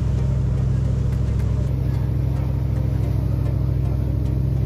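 Passenger ferry's engine running steadily: a loud, deep drone with a fast, even throb.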